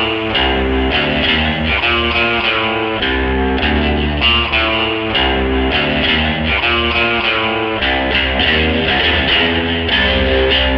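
Guitar-led background music, with chords changing in a steady rhythm over a bass line.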